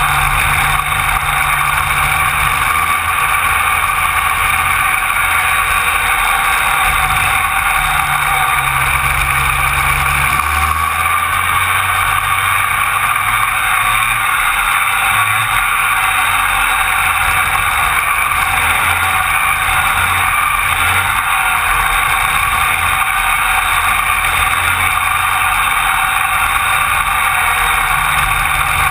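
Rotax Max 125cc two-stroke kart engines racing at full throttle, heard from a camera on a kart in the pack: a loud, steady engine note throughout.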